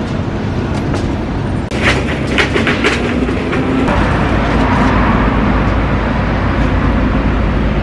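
A large vehicle passing close by: a steady heavy rumble, with a quick run of clattering knocks about two seconds in.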